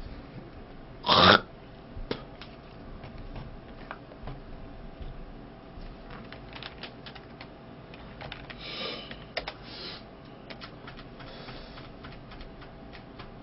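Scattered light clicks and taps, with one short, loud burst of noise about a second in and a softer rustling patch a little before ten seconds.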